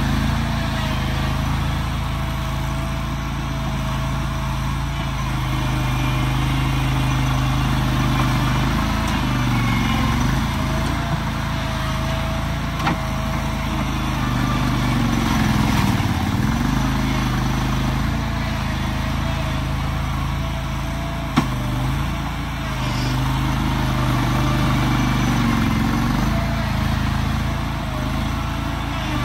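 An engine running steadily, its pitch wavering slightly, with a single sharp click about twenty seconds in.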